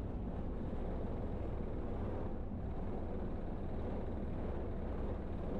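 Steady low rumble inside a single-engine Cessna's cabin on the landing rollout, with the engine at idle.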